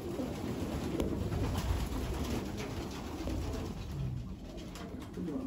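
A loft full of racing pigeons cooing, many low coos overlapping one another.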